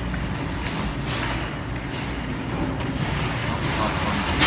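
Steady low rumble of background noise around a claw machine, with one sudden knock near the end.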